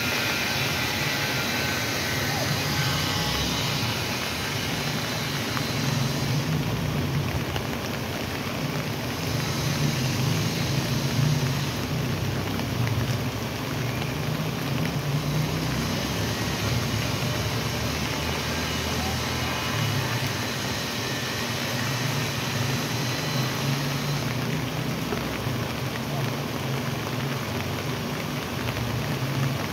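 Floodwater rushing steadily down a paved, stone-walled flood channel, filled to the brim after heavy rain.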